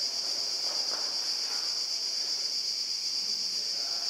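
Steady, high-pitched drone of insects, unbroken and unchanging in level.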